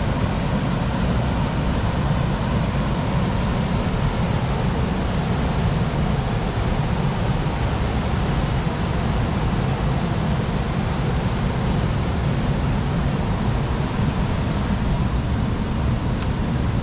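Steady noise of a vehicle on the move: a constant low rumble with an even hiss above it, unchanging throughout.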